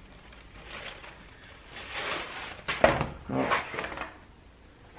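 Tool-chest drawer liner sheets being handled and laid into a metal drawer: a soft sliding rustle about two seconds in, a sharp tap just before three seconds, then another brief rustle.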